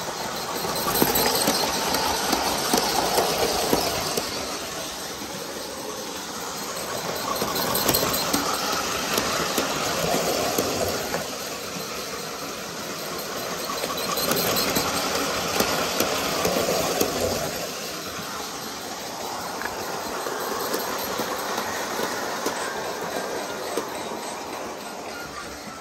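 Bachmann G-scale model train running around its track loop: motor and wheels whirring, with clicking over the rails. It grows louder and fades again each time the train passes close by, three times in the first two-thirds, then runs more evenly.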